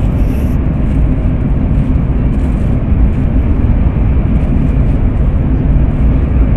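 Steady rumble of a Shinkansen train running, heard from a seat inside the passenger car.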